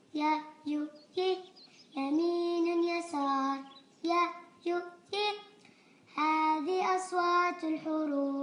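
A child's voice singing an Arabic letter-sounds chant unaccompanied, in short phrases with brief pauses between them.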